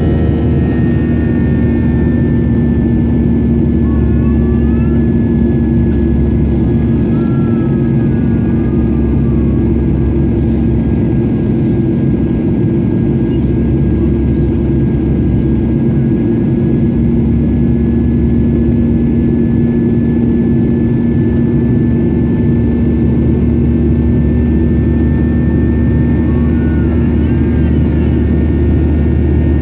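Boeing 737-800 cabin noise, with the steady rush of its CFM56 turbofan engines and a deep hum, plus a thin high whine held throughout. The passenger takes this for a strange engine noise they have never heard on this type before.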